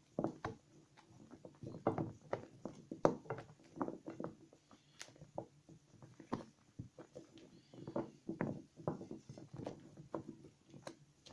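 Soap remnants being lathered and squeezed in wet hands, making irregular wet squelches and clicks, several a second.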